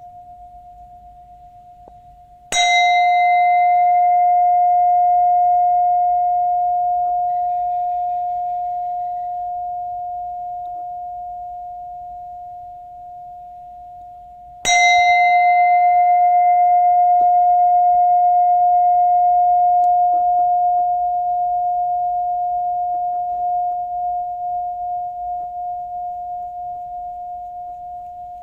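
Buddhist bell struck twice, about twelve seconds apart. Each stroke gives a clear, mid-pitched ring with bright overtones that dies away slowly and wavers as it fades. A faint ring from an earlier stroke is still sounding before the first strike.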